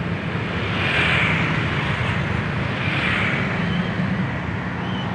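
Road traffic of motorcycles and buses: a steady low engine rumble, with two swells of engine noise about one and three seconds in as vehicles pass close by.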